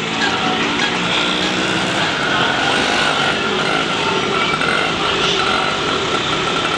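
Street traffic: vehicle engines running as pickups and a truck drive past close by, with a faint steady high tone under the noise.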